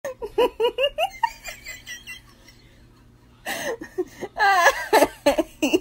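A person laughing in a quick run of short bursts, a pause, then louder, high-pitched laughter near the end.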